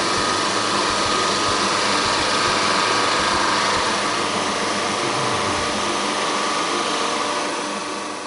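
Jet 22-44 OSC oscillating drum sander running: a steady whir with a high whine, fading out near the end.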